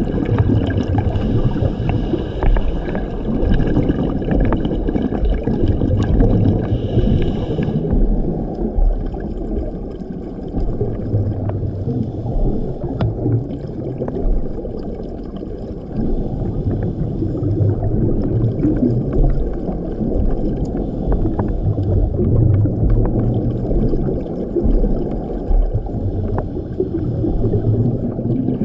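Scuba regulator breathing underwater: exhaled bubbles rumble and gurgle in swells every few seconds, with scattered faint clicks.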